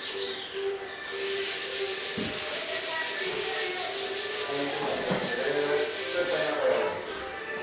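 A rapid, rasping scrape of an abrasive worked against a surface, like sanding. It starts about a second in, runs in fast even strokes for about five and a half seconds, then stops.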